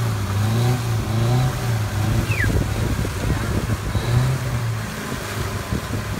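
Ford Maverick SUV's engine running hard under load as it sits stuck in mud and water, its wheels spinning and spattering mud. The engine note drops away about five seconds in.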